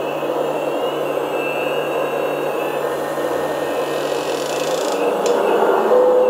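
1/12-scale RC hydraulic excavator running, its hydraulic pump whirring steadily as the boom, arm and bucket move. Near the end a higher tone comes in and it gets a little louder.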